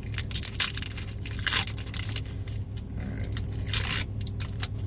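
A foil Pokémon booster pack being torn open and crinkled by hand: sharp crackling rustles, with a longer crinkle just before the end. A steady low hum runs underneath.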